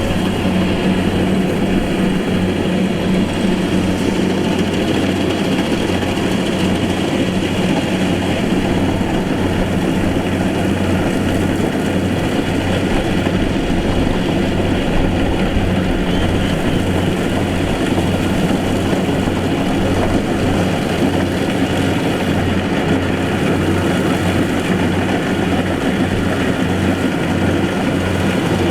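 Rice combine harvester's engine running steadily, with an even low hum and a regular pulsing throb.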